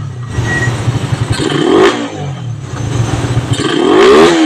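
Suzuki Raider 150 single-cylinder engine, fitted with a 30mm carburettor but otherwise stock, blipped twice by hand on the throttle: the revs climb and fall back to an idle between, the second rise longer and louder than the first. The engine is still cold.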